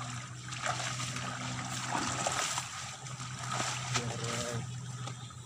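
Muddy ditch water splashing and sloshing as hands grope through it and the grassy bank for fish, over a steady low hum, with a few faint voices.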